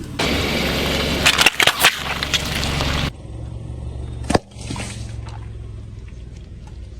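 Car tyre rolling over and crushing crunchy toys: a dense crackling crunch with several sharp cracks, which cuts off suddenly about three seconds in. After it comes a low engine hum, with one more sharp crack a little later.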